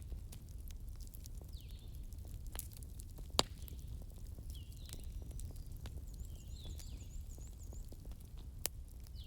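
Wood fire crackling in a fireplace: a steady low rumble with many small sharp crackles and a loud pop about three and a half seconds in, another near the end. Faint short high chirps recur every second or two.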